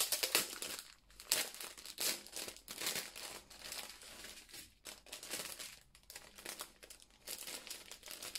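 Clear plastic bags of diamond-painting drills crinkling as hands handle and pull them apart. The crackles come irregularly and are loudest in the first three seconds, then softer.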